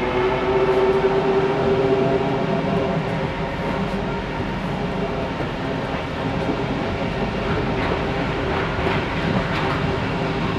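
Paris Métro Line 1 rubber-tyred train heard from inside the carriage while running between stations: a steady rumble with the whining hum of the traction motors, its pitch climbing slightly near the end.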